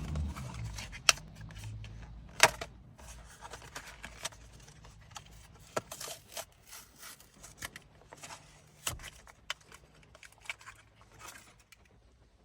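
A Hot Wheels car's cardboard-and-plastic blister package being opened by hand: scattered clicks, crinkles and tearing, with two sharp snaps about one and two and a half seconds in, growing sparser toward the end.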